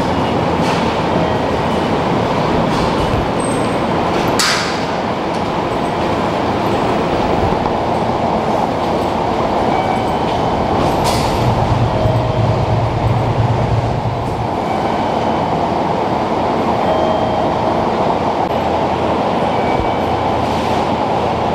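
Train running with a loud, steady rumble. A few sharp clicks and brief short tones come over it, and a deeper hum swells for a few seconds about halfway through.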